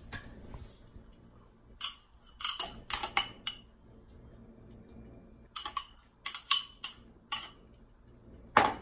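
A stainless slotted spoon clinks against a ceramic bowl and plate as saffron rice is scooped and tapped off. The taps come in two quick runs of several clinks each, with a louder clink near the end.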